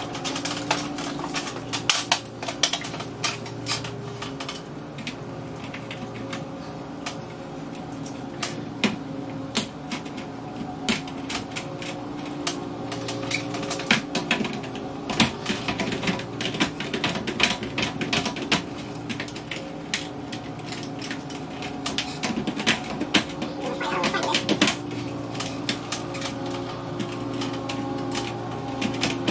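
Irregular clicks and light metallic taps of the sheet-metal lampholder bracket and wiring of a fluorescent light fixture being handled, over a steady low hum.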